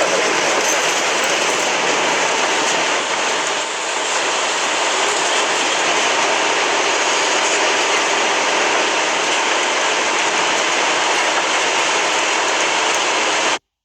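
Loud, steady rushing noise with no music or voice, cutting off abruptly near the end.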